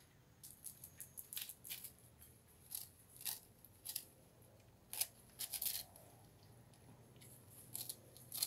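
Dog chewing hard stale bread: short, dry crunches at irregular intervals.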